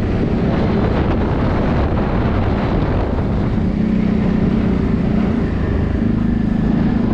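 ATV engine running steadily while riding, with wind rushing on the microphone.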